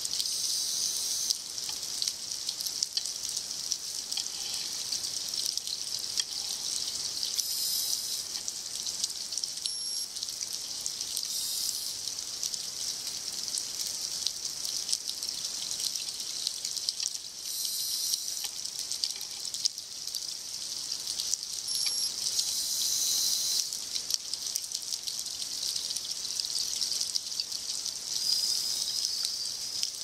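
Underwater sound picked up by a camera swimming through a kelp forest: a steady high crackling hiss full of fine clicks, with louder rushing bursts every few seconds.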